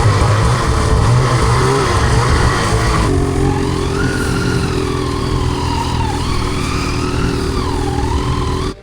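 Ski-Doo snowmobile engine running while riding downhill, its pitch rising and falling with the throttle over a heavy low rumble. It cuts off abruptly near the end.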